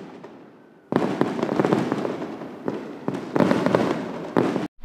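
200-gram consumer firework shot cake going off: loud bursts about a second in, again near the middle and just before the end, each followed by dense crackling. The sound cuts off abruptly near the end.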